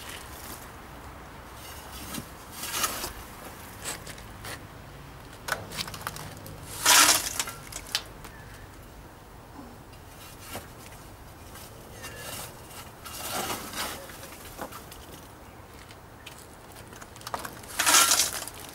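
Scattered short clatters and rattles of biochar chunks against a galvanized metal bucket and sieve, the loudest about seven seconds in and another near the end as leftover pieces too big for the sieve are tipped back into the bucket.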